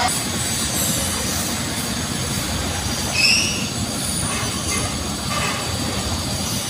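Metal-working lathe running with a steady mechanical noise, and a short, high metallic squeal about three seconds in.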